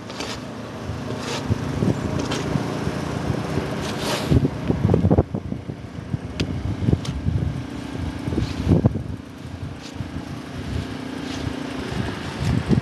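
An engine running steadily with a low hum that fades out near the end, under gusty wind noise on the microphone and scattered knocks.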